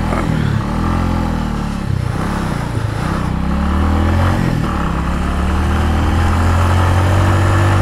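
Bajaj Avenger Street 150's single-cylinder engine pulling up a steep, winding hill road, its pitch rising and falling several times through a sharp turn, then running steadily for the last few seconds.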